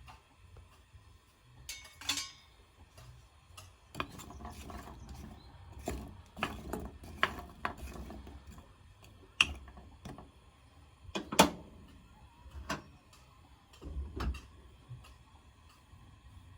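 Irregular clicks and knocks of kitchen utensils and cookware being handled, with a short scraping rustle about two seconds in.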